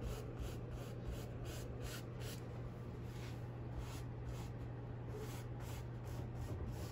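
Stiff bristle paintbrush pulling acrylic paint across stretched canvas in repeated short, faint scratchy strokes, over a steady low hum.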